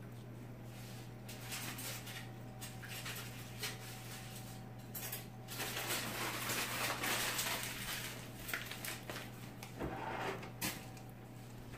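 A spoon spreading icing over rolls on a parchment-lined baking sheet: soft scraping and a few light clicks of the spoon, busiest around the middle, over a steady low hum.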